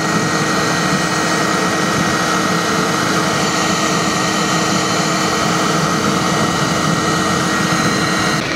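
Homemade waste-oil drip forge burner running with a steady roar and a constant hum; it drops a little in level near the end.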